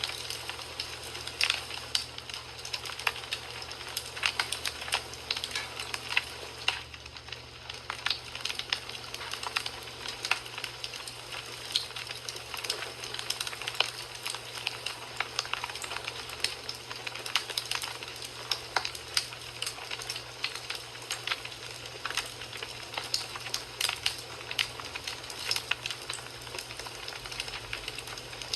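Wood fire burning in a fireplace: steady hissing with frequent irregular crackles and pops from the burning logs.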